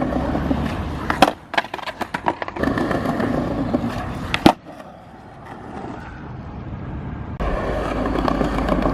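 Skateboard wheels rolling, broken by a rapid clatter of board impacts about a second in, as a trick is popped and the board lands or is kicked away. A single loud crack of the board hitting the ground comes about halfway through, then the rolling picks up loudly again near the end.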